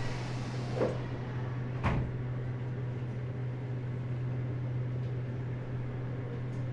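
Inside a Meitetsu 100 series railcar standing with its traction motors silent: a steady low hum from the car's equipment, with two faint knocks about one and two seconds in.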